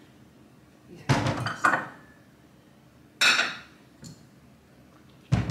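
Kitchen bowls and dishes clattering as someone rummages for a mixing bowl: two knocks about a second in, a longer scraping clatter around three seconds in, and a dull thud near the end.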